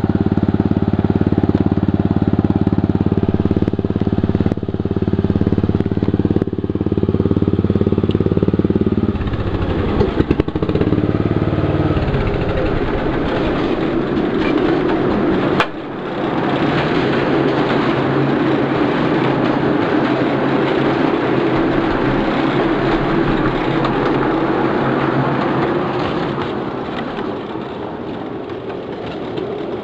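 Engine of a ride-on 1/8-scale model locomotive idling steadily. From about ten seconds in it gives way to the broader running noise of the train moving along the track, with a single sharp click near the middle.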